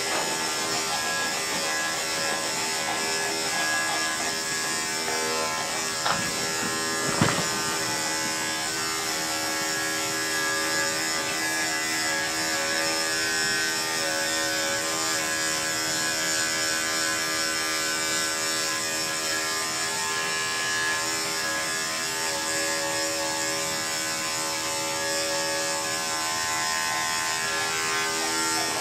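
Electric dog-grooming clippers running steadily as they shave a dog's coat, with two short knocks about a second apart around six and seven seconds in.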